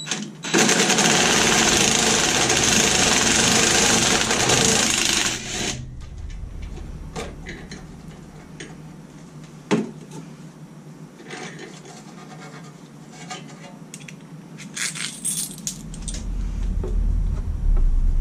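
Cordless impact wrench hammering a bolt home for about five seconds, running in a bolt that mounts the engine block to the engine stand. Then scattered metal clinks of washers and bolts being handled, and a low hum comes in near the end.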